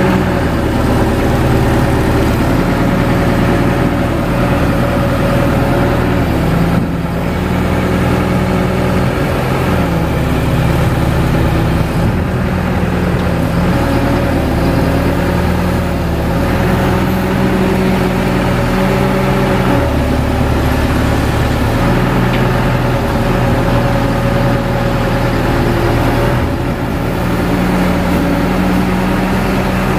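Kato HD512E excavator's diesel engine running steadily under load, its note shifting slightly every few seconds as the hydraulics work the arm. The excavator is pushing its barge along the canal with its bucket.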